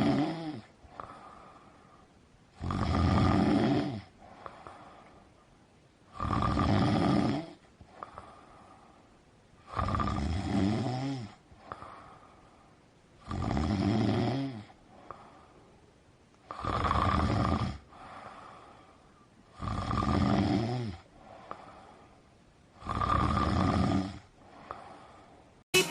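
Loud, rhythmic snoring: one long snore roughly every three and a half seconds, each about a second and a half long, with a faint breath between snores.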